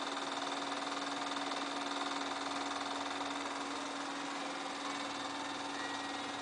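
8mm film projector running steadily, its motor and film-advance mechanism making an even mechanical whir with a steady hum.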